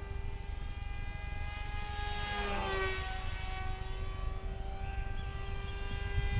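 Electric motor and pusher propeller of a small RC foam jet whining steadily in flight. Its pitch dips briefly and comes back up about two and a half seconds in.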